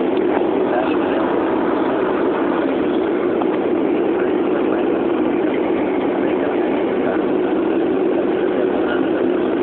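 Turboprop engine and propeller heard from inside the airliner cabin in cruise flight: a loud, steady drone with a low, even hum underneath.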